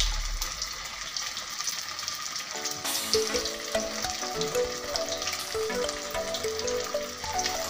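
Fish pieces deep-frying in hot oil in a wok, a steady sizzle. Background music with a simple melody comes in about three seconds in.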